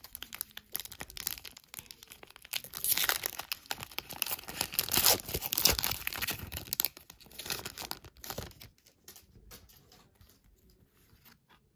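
Foil trading-card pack being torn open and crinkled as the cards are worked out of the wrapper, in dense crackling bursts. It thins to soft scattered rustles after about eight seconds as the cards are handled.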